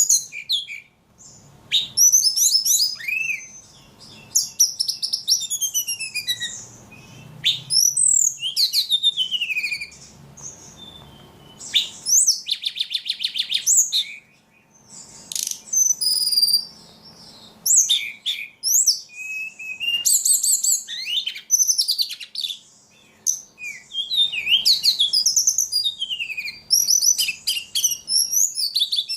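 A ledekan songbird singing continuously and vigorously: a fast, varied run of high chirps, sweeping whistled notes and rapid buzzy trills, with short pauses between phrases.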